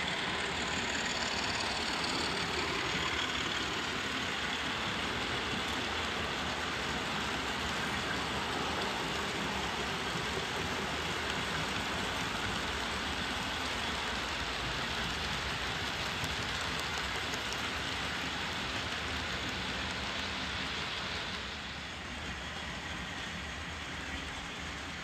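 OO gauge model diesel locomotive and its coaches running round the layout: a steady rumble of wheels on the track, which becomes quieter about three-quarters of the way through.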